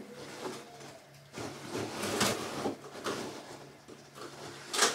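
Soft rustling and handling noise from a heavy box being handled before it is opened, with a few light knocks.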